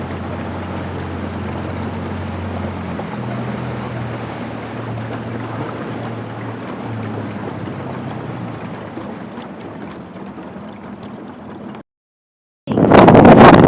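A small boat under way on a flooded river: a steady low motor hum with water rushing and gurgling around the hull. Near the end the sound drops out briefly, then a sudden, very loud rush of noise follows.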